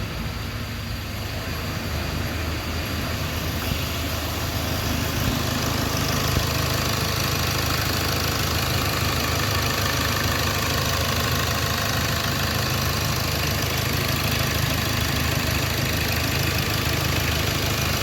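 Hyundai Accent CRDi common-rail diesel engine running steadily, now that its cranking no-start fault has been fixed. It gets a little louder a few seconds in.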